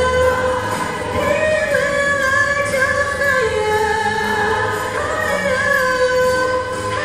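High school show choir performing a pop song: female voices sing long held notes that glide slowly between pitches over a steady backing accompaniment.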